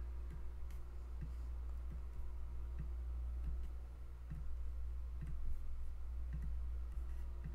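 Scattered faint computer mouse clicks, irregular at roughly one or two a second, over a steady low hum.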